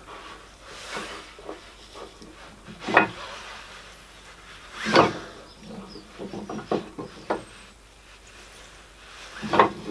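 Workshop handling noises: a few sharp knocks and clatters, the loudest about 3 and 5 seconds in and again near the end, with a quick run of lighter clicks in between.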